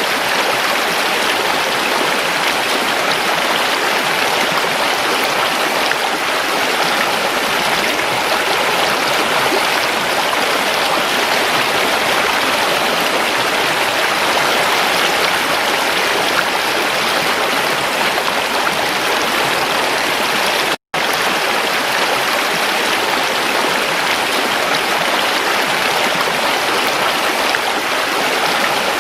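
Creek water flowing steadily over rocks, a dense, even rushing and gurgling. About two-thirds of the way through, the sound cuts out for an instant and comes straight back.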